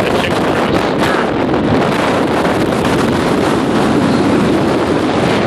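Very strong wind, of about 70 mph, buffeting the microphone: a loud, constant rush of noise.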